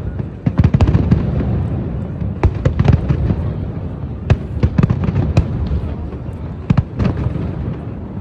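Aerial fireworks exploding, many sharp cracks and booms in quick clusters over a continuous low rumble from the display.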